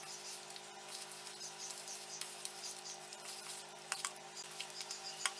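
Hands squeezing and rubbing crushed jaggery and grated coconut together in a plastic bowl: faint, irregular crackling and squishing with a few sharper clicks, over a steady low hum.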